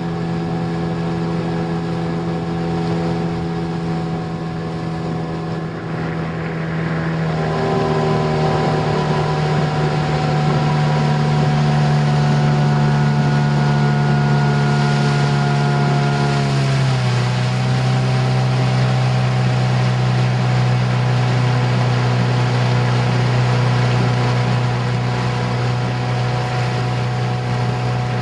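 Motorboat engine running steadily, its pitch dropping in two steps as it is throttled back.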